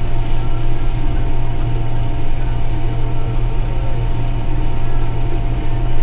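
Combine harvester running steadily while harvesting corn: a constant low engine drone with a steady higher whine from the machinery.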